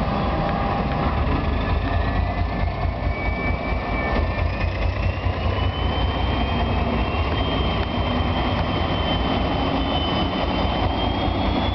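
Two TEM2 diesel locomotives, each with a turbocharged six-cylinder diesel, running hard under load as they haul a heavy 15-car passenger train away and past. A steady deep engine rumble, with a thin high whine that climbs slowly in pitch as the train gathers speed.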